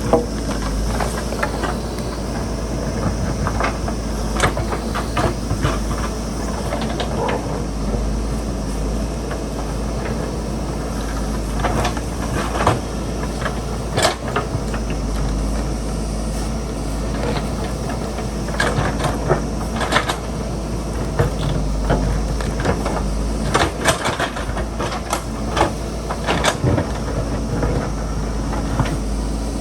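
JCB backhoe loader's diesel engine running steadily, with frequent short clanks and knocks as it digs into the hillside.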